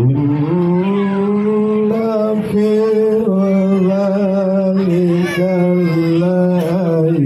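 A man reciting the Qur'an in the melodic tilawah style, singing long held notes with slow ornamented turns and short breaks between phrases, amplified through a microphone.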